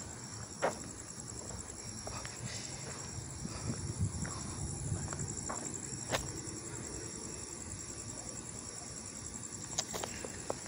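Night insect chorus: a high trill pulsing in an even rhythm, with a steadier high buzz above it, over a low rumble. A few sharp clicks stand out, about a second in, around six seconds in and near the end.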